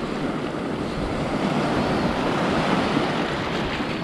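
Small surf waves washing in and out over shallow water and sand at the water's edge, with wind buffeting the microphone.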